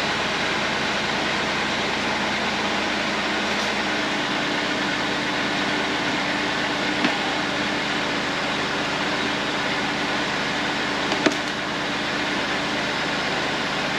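1996 Buick Park Avenue's 3.8-litre V6 idling steadily, with a faint steady tone joining about four seconds in and a couple of light ticks.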